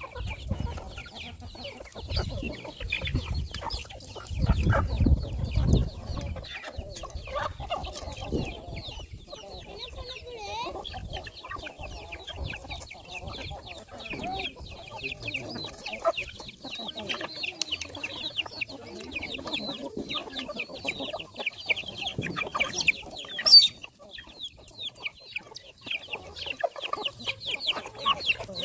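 A large flock of chickens clucking, with a dense chorus of short high-pitched calls running over the lower clucks. A few seconds in there is a stretch of low rumbling, and near the end one sharp, loud sound stands out.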